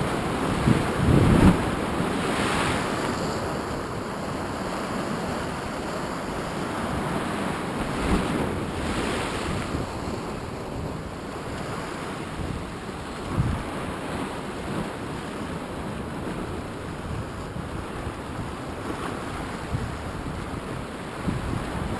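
Ocean surf washing and breaking against the rocks below, with wind buffeting the microphone. The wash is steady, with louder surges about a second in, around eight seconds, and again near thirteen seconds.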